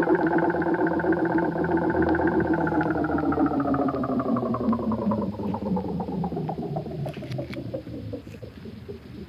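Sound effect of a pitched, engine-like drone that swoops up at the start, then slowly sinks in pitch and fades over about nine seconds, like a motor winding down.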